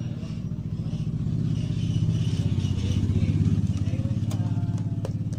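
An engine running steadily at a low pitch with a fast, even pulsing beat, growing a little louder about two seconds in.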